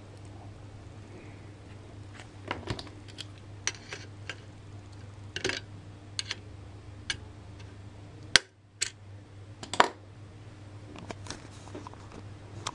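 Scattered light clicks and taps of handling, from a pointer and hands working over a computer circuit board, over a steady low hum. The sharpest clicks come about eight and ten seconds in, the first followed by a brief drop in the background.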